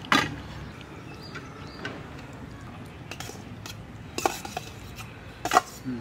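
Stainless steel bowl and plate clinking together as rice is served, with a few separate sharp metal clinks.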